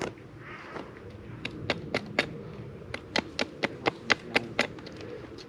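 A run of sharp, irregular taps or knocks, about two to four a second.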